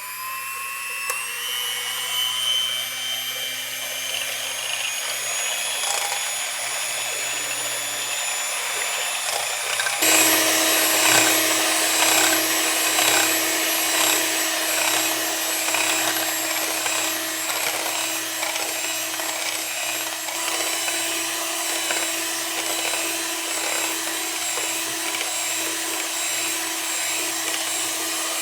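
Electric kitchen mixer running steadily, its motor pitch creeping up over the first several seconds, then stepping up to a higher speed about ten seconds in.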